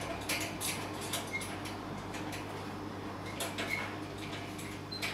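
Hanging rope perch and its fittings in a wire birdcage clicking and creaking irregularly as a scaly-breasted lorikeet bounces on it, with a few brief high squeaks.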